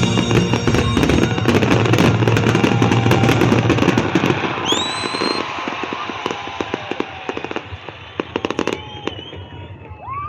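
Fireworks going off: a dense barrage of bangs and crackling for the first half, thinning to scattered crackles later, with a short rising whistle near the middle.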